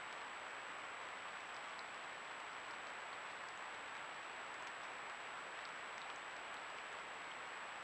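Steady hiss of a trail camera's microphone with a constant faint high whine, and a few faint scattered ticks of water drips falling into a puddle.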